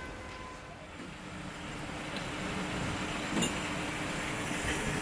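Steady low hum of a vehicle engine idling, with one faint knock about three and a half seconds in.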